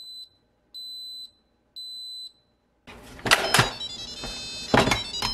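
Instant Pot Air Fryer multicooker beeping three times, each a high half-second beep, as its Slow Cook program is set for five hours on Lo. From about three seconds in, clicks and knocks as the cooker's lid is handled.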